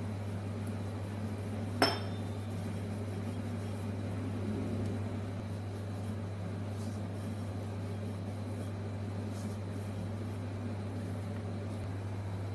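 A steady low hum, with one sharp ringing metal clink about two seconds in: a steel rolling pin knocking against the stone countertop while puri dough is rolled out.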